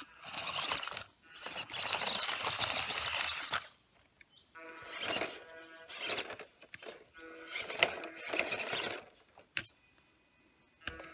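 Small 1/14-scale RC crawler's electric motor whining at a steady pitch in short throttle bursts with pauses between them. In the first few seconds there is a stretch of noisy scrabbling, like tyres and chassis on stone.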